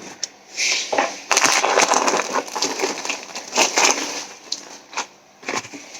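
Packaging crinkling and rustling in irregular bursts as a parcel is opened and handled.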